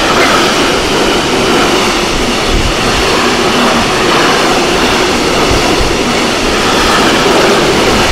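Container freight train passing close by at speed: a loud, steady rush of wheel and rail noise from the container wagons.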